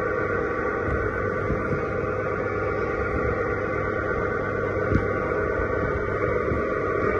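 Jolly Roger kiddie tractor ride running, with a steady electric hum from its drive and a few light knocks.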